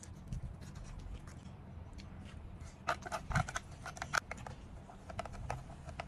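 Chopsticks clicking and scraping against a metal mess tin in quick irregular strokes, loudest from about three to four seconds in.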